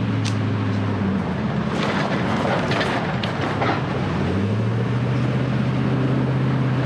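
Vehicle engine droning in the cabin while driving on a rough back road, with a spell of rattling road noise in the middle. About four and a half seconds in, the engine note steps up and grows stronger as the vehicle accelerates.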